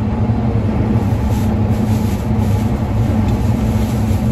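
Tractor engine running steadily under load in the cab, pulling a baler through straw.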